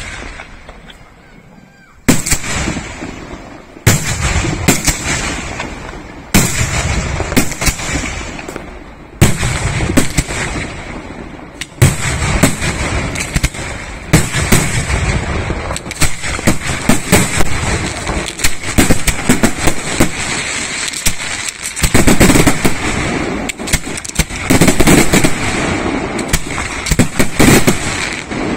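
Aerial fireworks shells bursting: single loud bangs every two to three seconds at first, then from about twelve seconds in a rapid, near-continuous string of bangs and crackle that is loudest over the last several seconds.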